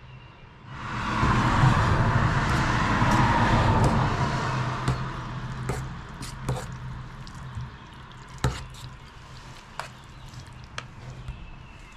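Food sizzling in a hot pan: a loud hiss that starts about a second in and dies down over the next few seconds. Scattered light clicks and taps follow, over a steady low hum.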